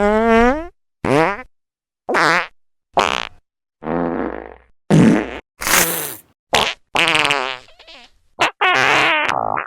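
A string of about ten short cartoon fart sound effects, each cut off by silence, several of them sliding up in pitch.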